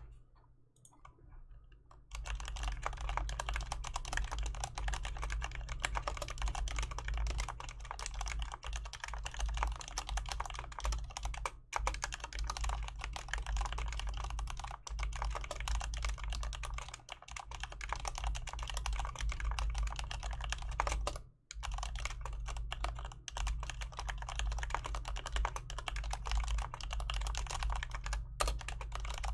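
Fast continuous typing on a Mistel Barocco split mechanical keyboard with Cherry MX Black linear switches and PBT keycaps: a dense run of keystroke clacks that starts about two seconds in and breaks off briefly twice. A low steady hum runs underneath.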